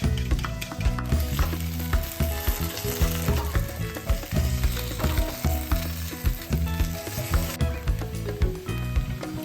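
Food sizzling as it fries in oil in a pan, the hiss strongest from about a second in until near the end, over background music.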